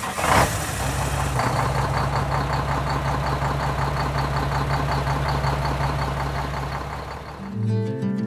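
A car engine just started: it revs briefly, then settles into a steady idle. A high-pitched beep repeats several times a second through the middle of it. Guitar music fades in near the end.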